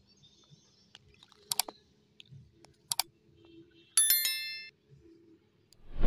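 Subscribe-button overlay sound effects: two mouse clicks, then a bright bell-like chime about four seconds in. A loud dull thump comes at the very end.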